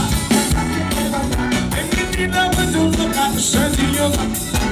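A live forró band playing loud, with drums and a horn section, heard through a phone's microphone.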